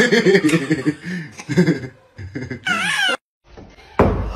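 A man and a baby vocalizing and laughing, ending in a high, wavering squeal. After a short break there is a single thump near the end.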